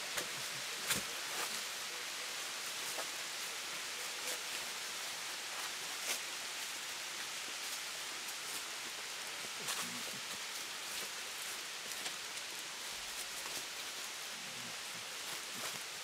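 Steady rushing hiss of falling water from a waterfall, with a few faint clicks.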